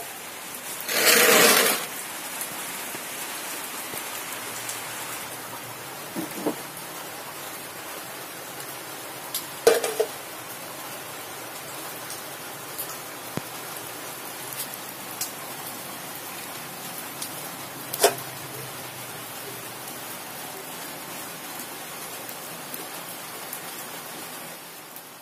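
A steady hiss, with a few sharp knocks as lead plates from scrap car batteries are handled in a metal pot, and one louder burst about a second in.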